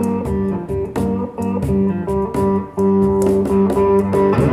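Slow blues on an electric guitar played with a slide: a repeating picked bass figure under held slide notes, with a slide glide near the end.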